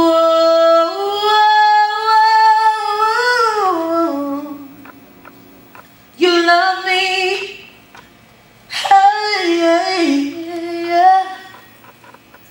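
A woman singing solo into a microphone, with no instrument heard: three long, slow phrases of held notes, the first starting suddenly, with short pauses between them.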